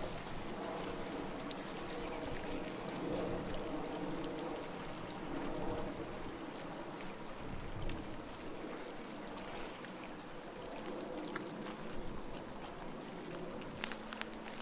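Small waves lapping and splashing gently at the water's edge.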